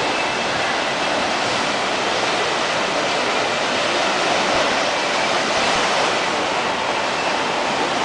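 Churning white water of a river rapids ride's channel: a steady rushing wash of water noise.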